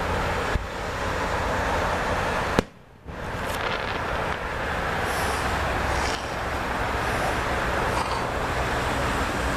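Steady outdoor background rumble and hiss, with a sharp click about two and a half seconds in and a brief half-second drop-out right after it.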